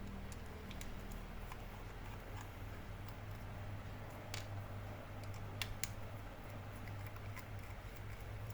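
Faint, scattered clicks and taps of small laptop parts being handled and worked loose, over a steady low hum.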